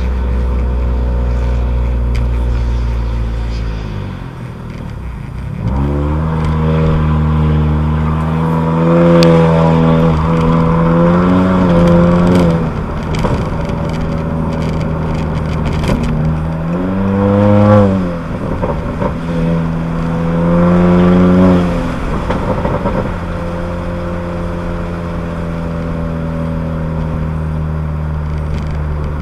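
Turbocharged 1.5-litre four-cylinder of a Honda Accord Sport with a PRL downpipe and front pipe and the resonator and muffler deleted, heard from inside the car. It runs steadily, then pulls three times with the exhaust note rising and falling: a long pull about six seconds in, and two shorter ones around sixteen and nineteen seconds. It then settles back to a steady cruise.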